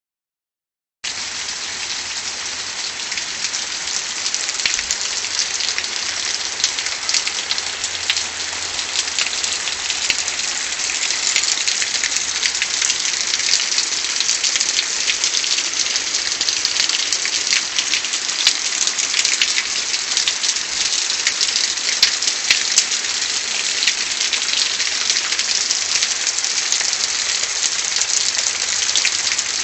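Steady heavy rain falling, a dense hiss of countless drops striking surfaces with fine individual drop clicks through it, starting about a second in.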